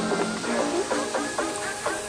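Background music: an upbeat tune of short, quickly repeated plucked notes.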